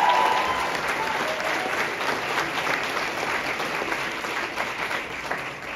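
Audience clapping, gradually dying away.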